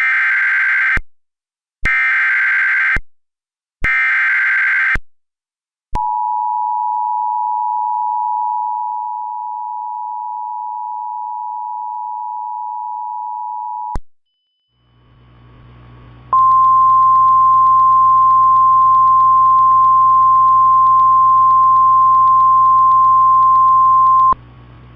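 Simulated Emergency Alert System sequence. It opens with three one-second bursts of buzzy SAME header data tones, then the steady two-tone EAS attention signal for about eight seconds. After a moment of radio hiss and hum, the single steady NOAA Weather Radio warning alarm tone sounds for about eight seconds.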